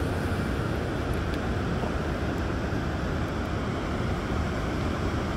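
Wind buffeting the microphone over the wash of surf on a beach: one steady noise, heaviest in the low end, with no breaks.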